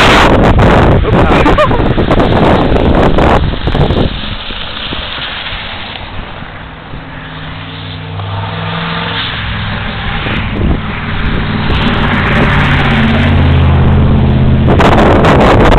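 Wind buffeting the microphone loudly, then easing off for several seconds while a vehicle's engine comes through, growing louder. Heavy wind buffeting returns near the end.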